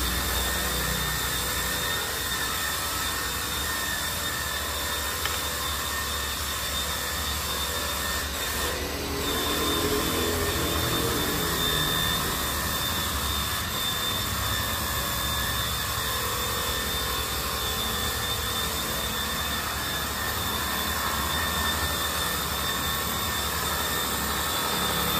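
Makita DHW180 cordless pressure washer running steadily with a constant whine, a little louder from about nine seconds in.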